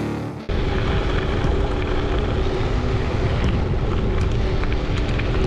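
A music track cuts off about half a second in. After it comes steady wind buffeting on the handlebar camera's microphone, mixed with the rumble of an All-City Gorilla Monsoon gravel bike's tyres rolling over loose gravel, with small scattered ticks.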